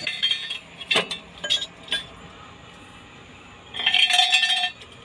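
Steel tools knocking and clinking on a truck's propeller shaft while its worn centre (hanger) bearing is being removed: a few sharp metallic taps, then a longer ringing metal clatter about four seconds in.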